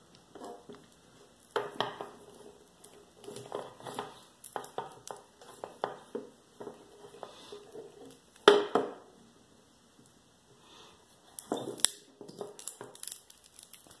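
Old wire cutters biting into a Kryptonite steel cable bike lock, with irregular crunching and clicking as the strands give way under the squeeze. The loudest crunch comes about eight and a half seconds in, and two more sharp ones near twelve seconds.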